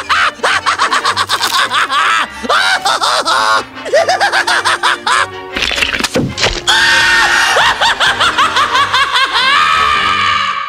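Ren Höek's cartoon voice from Ren and Stimpy laughing and screaming without words, with quick rises and falls in pitch, over background music. It fades out at the very end.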